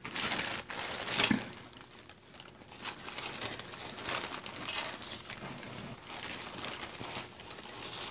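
Clear plastic zip-top bag crinkling as hands rummage through the ribbon scraps inside, in irregular rustles that are loudest about a second in.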